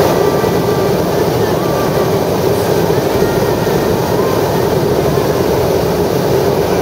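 Hot-air balloon's propane burner firing in one long, steady, loud roar.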